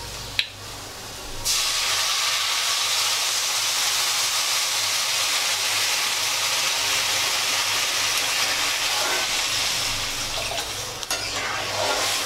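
Water poured into a hot metal kadhai of roasted semolina and vegetables, hissing loudly as it hits the hot pan. The hiss starts about a second and a half in, holds steady for about nine seconds and then eases off, with a spatula knocking against the pan near the end.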